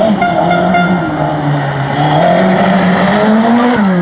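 Rally car engine revving hard on a special stage, its pitch climbing and falling with throttle and gear changes, with a clear drop near the end as the driver lifts or shifts down.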